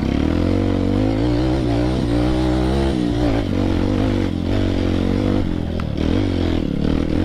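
Honda CRF trail motorcycle engine running at low speed, its pitch rising and falling as the throttle is worked, with a couple of sharp knocks in the second half.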